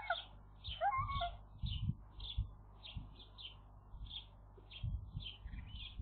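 Wild birds calling: a short high note repeated about twice a second throughout, with a few lower, rising calls in the first second or so. Low rumbling bumps run underneath.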